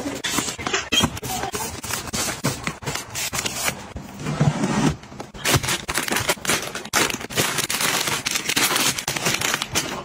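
Items being handled and unpacked: a dense, irregular run of clicks, light knocks, scrapes and crinkling, with a duller low knock about four and a half seconds in.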